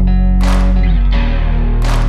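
Background music with a heavy bass under sustained notes, and two sharp hits about a second and a half apart.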